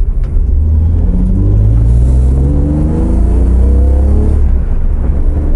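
BMW 330Ci's 3.0-litre straight-six, breathing through new stainless long-tube headers and a Magnaflow exhaust, accelerating hard, heard from inside the cabin. The exhaust note climbs steadily in pitch over about three seconds, with some rasp, then falls away near the end.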